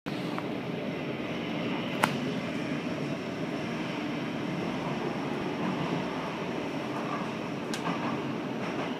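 Steady running noise inside a RET RSG3 (Bombardier Flexity Swift) light-rail car: a rumble with a faint even hum. There is a sharp click about two seconds in and a lighter one near the end.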